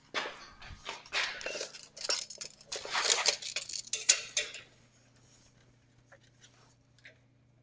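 Clattering and rattling of hard, likely metal objects being handled for about five seconds, then it stops, leaving a faint steady hum.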